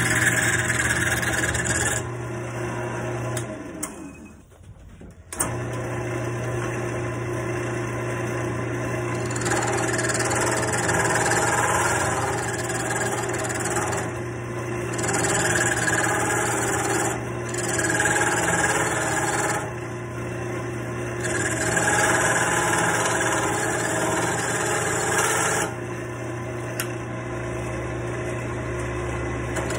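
Wood lathe running with a steady motor hum while a hand-held turning tool cuts a spinning wooden dowel, its scraping hiss coming and going in stretches of a few seconds as the tool is set to the wood and lifted off. The sound cuts out briefly about four seconds in.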